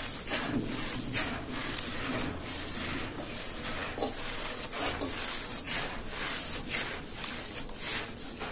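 Dry, gritty red dirt being scooped up by hand, crumbled between the fingers and poured back onto the floor: a continuous gritty rustle broken by repeated crunches as clumps break and fall.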